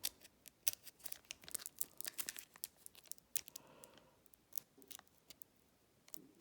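Foil wrapper of a Pokémon booster pack crinkling and crackling in many quick, sharp crackles as fingers work at tearing open a pack that won't open easily; the crackles thin out toward the end.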